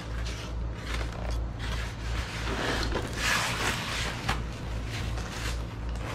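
White foam packing blocks and a box being handled: intermittent scraping and rustling, loudest a little past the middle, over a steady low hum.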